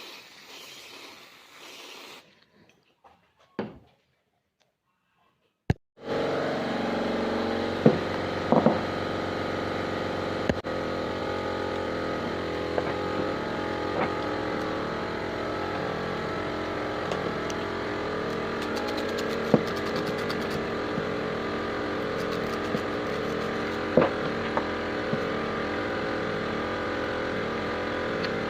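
LPG-converted Hyundai-Kia car engine running steadily at idle, coming in abruptly about six seconds in, with a few sharp clicks over it. Before that there is faint rustling and a couple of clicks.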